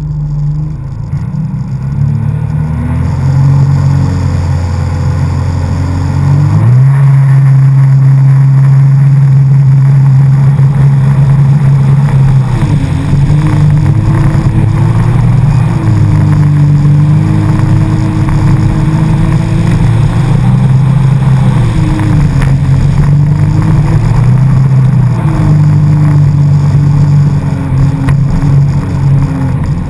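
Jet ski engine running under throttle. Its pitch jumps up sharply about six seconds in, then rises and falls repeatedly as the throttle is worked.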